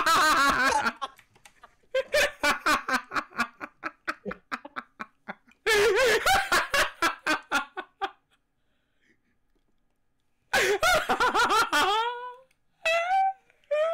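Men laughing loudly in repeated choppy bursts, with a quiet gap of about two seconds roughly eight seconds in, then more laughter.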